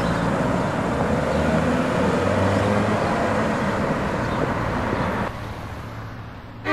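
A car driving on a street, with steady engine and tyre noise, which drops to a quieter road hum about five seconds in.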